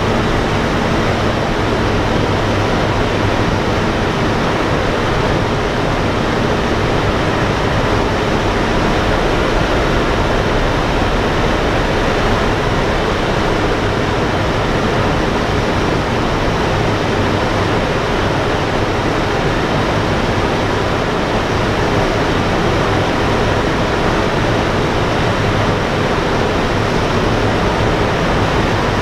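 Inside a B-17 bomber in flight: its four Wright R-1820 Cyclone radial engines droning, heard in the fuselage as a loud, steady wash of noise with a low hum beneath.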